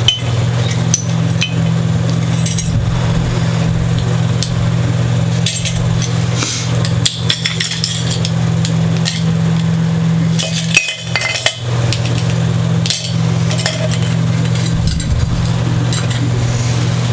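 Small hard parts clicking and clinking as they are handled and set down, in scattered short taps, over a steady low hum.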